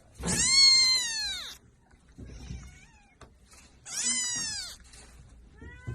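Domestic cat meowing: two long, loud meows a few seconds apart, each rising then falling in pitch, with another beginning at the very end.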